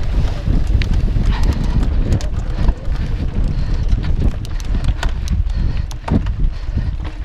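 Mountain bike rattling over a rough dirt singletrack: irregular clicks and knocks of the frame, chain and parts over bumps and stones, over a steady low rumble of tyres and wind on the microphone.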